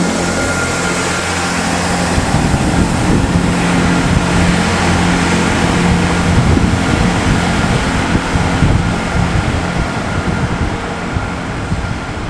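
Class 158 diesel multiple unit pulling away and running off down the line: its diesel engine running under the wheel-and-rail noise, the engine hum dying away about halfway through, with wind buffeting the microphone.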